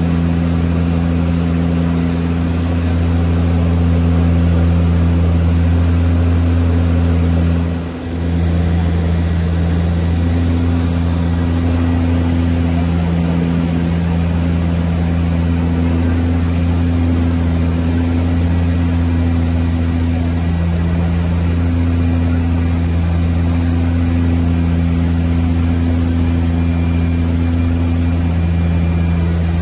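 Steady drone of a DHC-6-300 Twin Otter's two PT6A-27 turboprop engines and propellers heard from inside the cockpit in flight, a deep, even hum with a few steady tones. The sound dips briefly about eight seconds in, then carries on unchanged.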